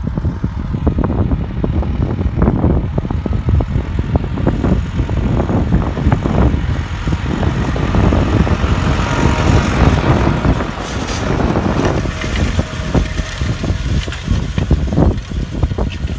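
Case tractor pulling a Şakalak ŞK-HM 18 grain seed drill while sowing, its engine running under load as it passes close by, loudest about eight to eleven seconds in. Wind buffets the microphone throughout.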